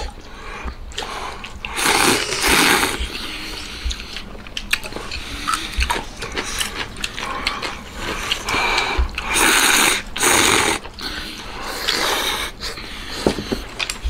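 A person slurping hot noodles from a bowl: several long, hissing slurps, one about two seconds in and a pair close together near ten seconds, with quieter chewing between.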